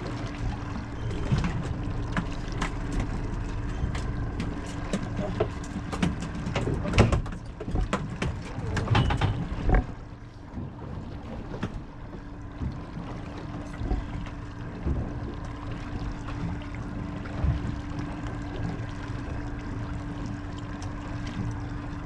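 A small fishing boat's outboard engine idles with a steady low hum under wind and sea noise. A run of sharp knocks and clatter on deck fills roughly the first ten seconds, then it settles to the steady hum.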